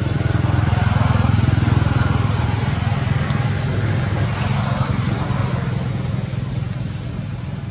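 Motor vehicle engine passing: a steady low hum that grows louder over the first couple of seconds and then slowly fades away.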